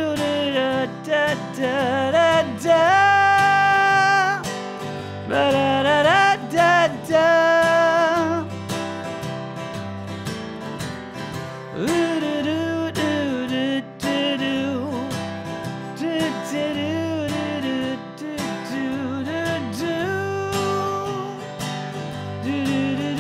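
A man singing with a strummed acoustic guitar, holding long notes in the first several seconds.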